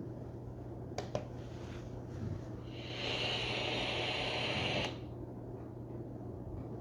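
FM static hissing from the Westclox FM radio alarm clock's speaker for about two seconds, starting a little before the middle, after two quick clicks about a second in. A low steady hum runs underneath throughout.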